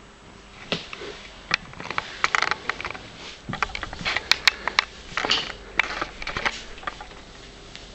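Irregular clicks, taps and rustles close to the microphone, denser in the second half: handling noise from the camera being moved and gripped.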